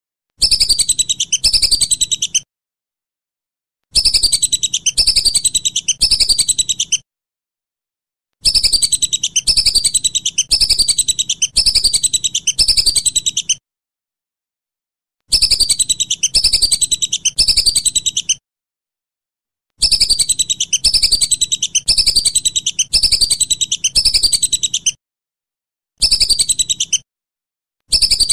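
Whistling duck (belibis) calling: runs of high, thin whistled notes, each falling in pitch, about two a second. The runs break off into short silences every few seconds.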